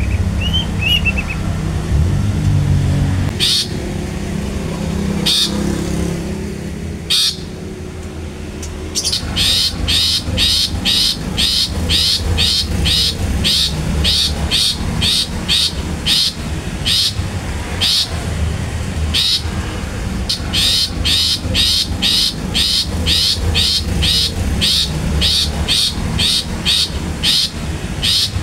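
Long-tailed shrike (cendet) calling its clipped 'toet toet tet tet' notes: a few spaced notes at first, then a fast regular run of about two a second from about a third of the way in. A steady low rumble lies underneath.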